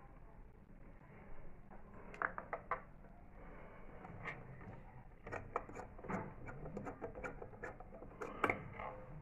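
Faint, irregular clicks and taps of hard porcelain and metal parts being handled on an old plug-fuse board. A quick cluster comes about two seconds in, and the sharpest knock comes near the end.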